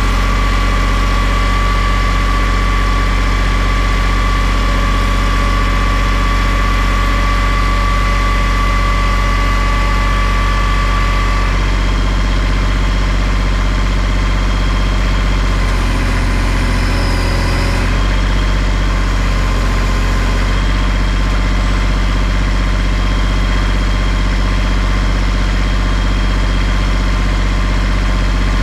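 A heavy engine idles steadily with a deep, even hum. Its sound briefly changes about sixteen seconds in, then settles back.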